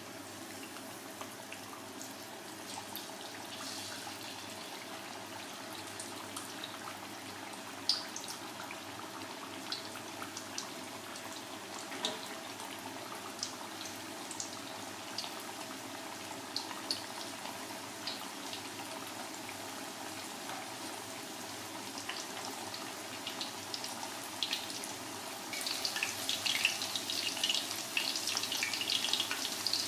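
Floured chicken leg deep-frying in hot oil in a stainless steel pan: a steady sizzle with scattered pops and crackles, getting louder and busier near the end as the oil bubbles harder.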